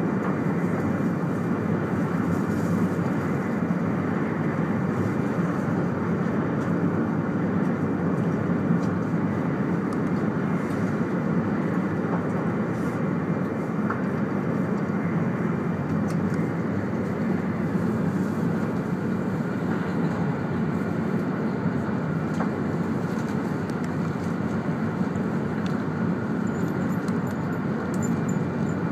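Steady interior running noise of a 200 series Shinkansen travelling at speed, heard inside the passenger car: an even rumble and rush from the wheels, rails and air around the car.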